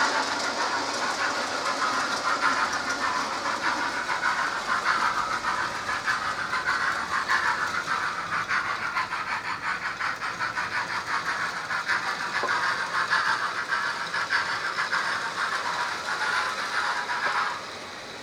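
00 gauge model train running on the layout's track: a fast clatter of wheels over the rails with a hiss. It cuts off suddenly near the end.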